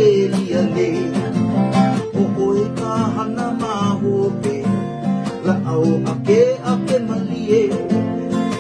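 Two acoustic guitars played together, strumming steady chords with a wavering melody line over them.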